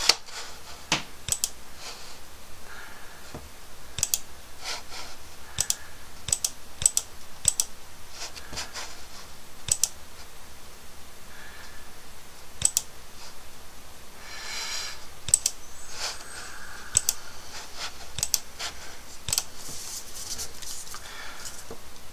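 Scattered clicks from a computer mouse and keyboard, one or a few at a time with pauses between.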